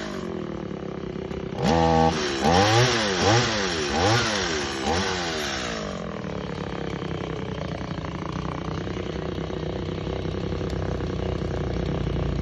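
Mini Stihl chainsaw engine blipped up and down about five times in quick succession, then settling into a steady idle about six seconds in.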